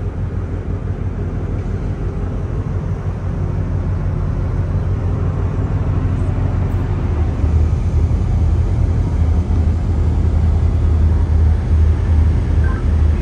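Steady low rumble of ship engines, growing louder about halfway through.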